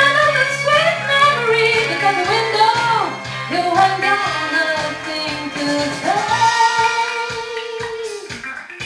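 A woman singing a soul song into a handheld microphone over a backing track with a steady bass line. She holds one long note from about six seconds in until near the end.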